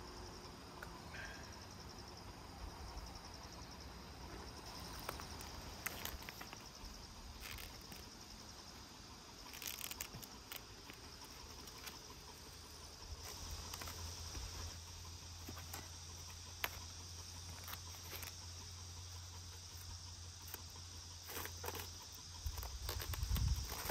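Insects chirring steadily in a high, thin band, with scattered light clicks and taps. A low hum comes in through the second half, and a low thump near the end is the loudest sound.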